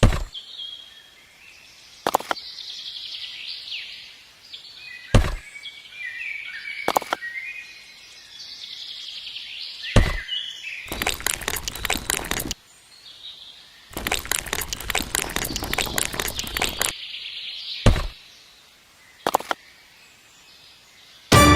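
Birds chirping in the background, broken by sharp knocks every few seconds and two stretches of dense rattling, scraping noise lasting about one and a half and three seconds.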